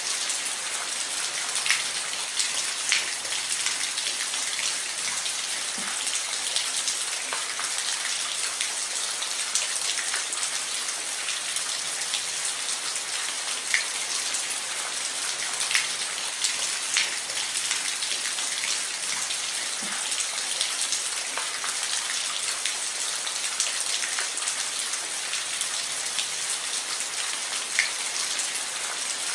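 Steady rain falling on a roof: an even hiss with scattered louder drop taps.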